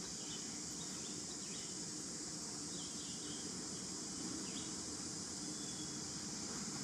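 Outdoor ambience dominated by a steady, high insect drone, with a few faint, brief bird chirps scattered through it and a low steady hum underneath.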